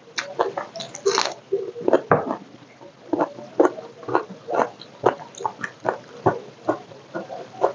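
Close-miked chewing and lip-smacking of a mouthful of food, about two wet chews a second, with a brief crackly crunch about a second in.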